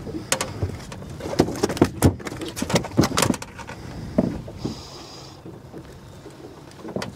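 Blue catfish thrashing and slapping on a boat deck while being handled for unhooking. A run of sharp thumps and slaps comes thickest in the first three and a half seconds, then only a few more.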